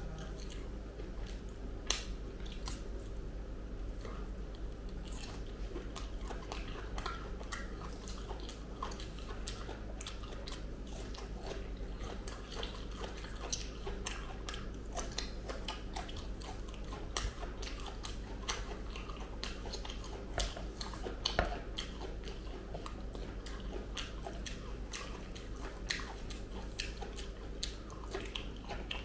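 Close-miked eating of ripe jackfruit: the soft yellow bulbs pulled apart by fingers and chewed, with many small wet clicks and smacks of the mouth. A steady low hum lies underneath.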